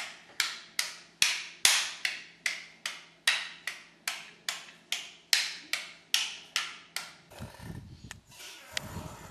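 Sharp knocks repeated at an even pace, about two and a half a second, each with a short fading ring. They stop about seven seconds in, and a low rumbling noise follows.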